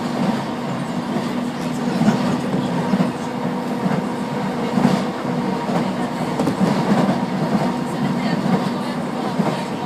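Electric commuter train running at speed, heard from inside the carriage: a steady rumble with a constant motor hum and occasional light clicks of the wheels over the rails.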